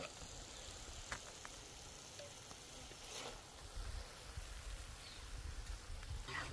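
Faint scrapes and taps of a metal spatula as thick masala is scooped from an iron tava into a clay bowl. There is a short one about a second in, a longer one around three seconds in, and another near the end, over quiet outdoor background.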